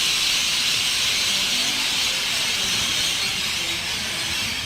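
Dense, steady chorus of a large flock of birds all calling at once as they settle to roost at dusk, merging into a high, hiss-like chatter.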